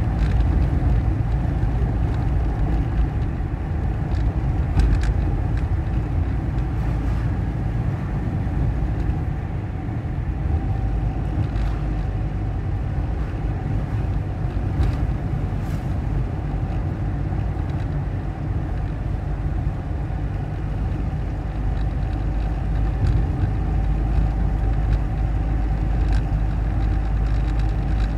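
Car driving on a paved road, heard from inside the cabin: a steady, low rumble of engine and tyre noise.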